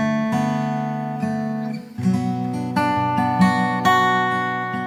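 Background music: acoustic guitar strumming chords that ring on, changing chord about two seconds in.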